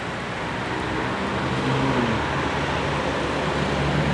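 Steady street traffic noise, with the low hum of a passing vehicle's engine.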